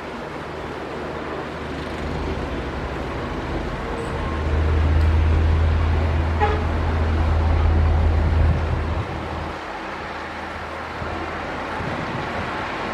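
Heavy diesel earthmoving machinery working, its engine rumble growing louder and deeper from about four seconds in, then easing off about nine seconds in.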